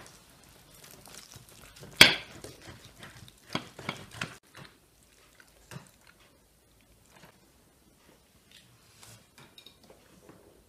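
Forks and spoons clinking and scraping on china plates as people eat: a sharp clink about two seconds in, a cluster of clinks a couple of seconds later, then only occasional faint taps.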